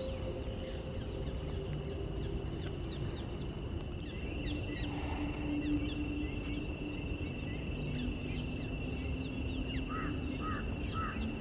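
Wetland ambience with many small birds calling in quick, high chirps, and one bird giving the same call four times in a row near the end, over a steady low background rumble.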